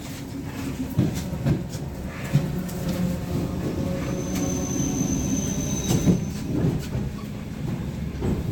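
ER9M electric multiple unit running along the track: a steady rumble with uneven knocks of the wheels over rail joints. A thin high whine from the wheels is heard for about two seconds midway.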